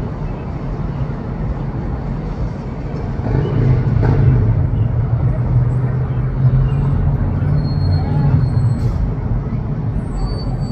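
City street traffic noise. A low engine rumble swells from about three seconds in and fades near the end as a car drives past below.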